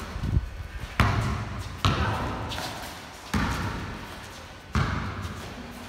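Basketball bouncing and striking during play: four sharp thuds at uneven intervals of about one to one and a half seconds, each ringing out briefly in the large, hard-walled garage bay.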